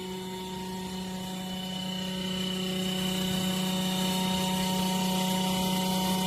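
Portable 12 V compressor fridge running: a steady electric hum with a strong low tone and several fainter higher tones, growing a little louder over the first few seconds.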